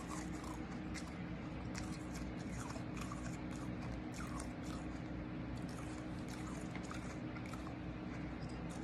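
Shaved ice chunks being chewed in the mouth: irregular crunching bites, with a steady low hum underneath.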